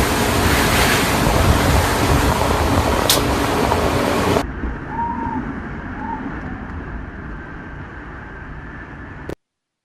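Hurricane wind blasting the microphone in a loud, even roar. About four and a half seconds in it cuts to a quieter, muffled rush of wind with two short chirps, then stops dead.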